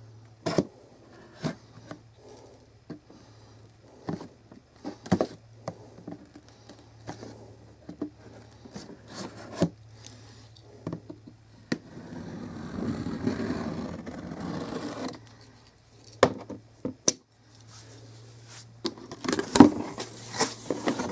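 A plastic-wrapped cardboard box being cut open with a knife and its flaps pulled open: scattered taps, clicks and scrapes, a longer rustling scrape from about twelve to fifteen seconds in, and a cluster of louder cardboard handling near the end. A faint low hum sits underneath.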